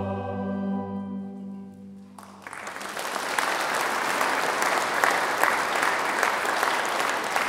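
A mixed choir holds its final chord, which fades away over about two seconds; then the audience breaks into applause that builds quickly and carries on.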